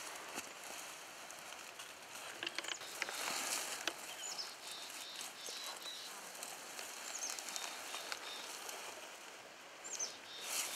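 Rustling and small clicks of a bowhunter's clothing and gear as he creeps through grass and brush, with a few short high bird chirps.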